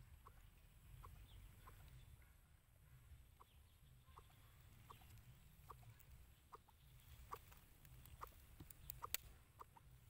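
Faint soft clucking from a domestic fowl: short clucks about once or twice a second over a low rumble. A few sharp clicks come near the end.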